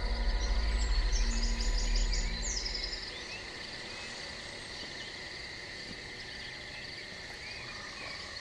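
A deep, low music drone fades out over the first three seconds, leaving woodland ambience: steady high-pitched insect buzzing, with a short run of bird chirps about a second in.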